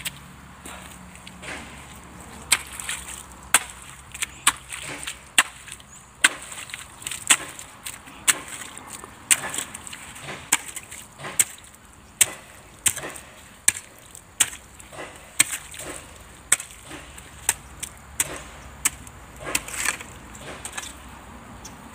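Hoe blade striking and scraping into wet, gravelly clay about once a second, digging out a drainage channel.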